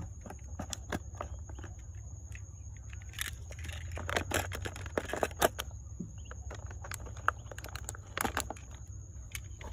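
Irregular light clicks and taps of small hard objects, thickest in the middle and again near the end, over a steady faint high whine and a low hum.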